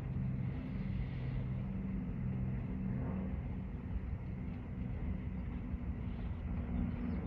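Steady low rumble and hum of a moving vehicle, with an even rush of noise over it and no sudden events.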